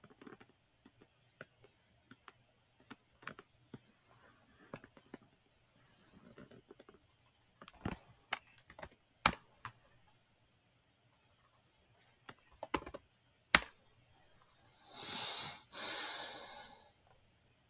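Scattered computer keyboard and mouse clicks, then near the end two loud rushes of breath about a second each, close to the microphone.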